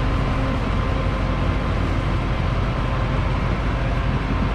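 John Deere S670 combine's diesel engine running steadily as the machine drives past and moves away along the road.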